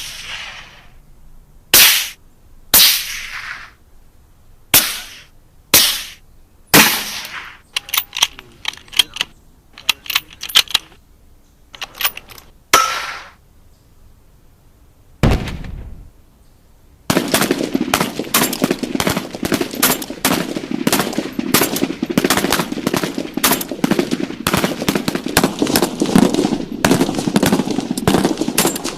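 Gunfire sound effects: single loud shots about a second apart, then a few short rapid bursts, a single deep boom in the middle, and from a little over halfway on, sustained rapid automatic fire.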